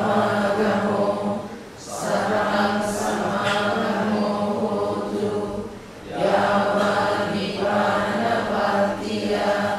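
A Buddhist congregation chanting together in unison, reciting on a near-level pitch in long phrases with short breaks for breath about two and six seconds in.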